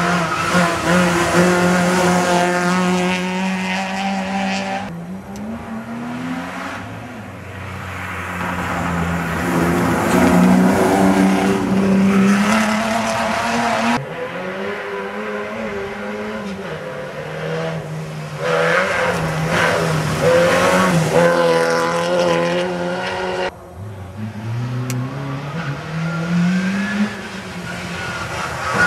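Rally cars' engines revving hard as the cars come up the stage and pass, the pitch climbing through each gear and dropping at the shifts. Several cars are heard in turn, each pass cut sharply to the next.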